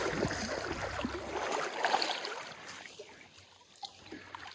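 Shallow stream water running and splashing, with a low rumble at first that fades away, and a few light ticks.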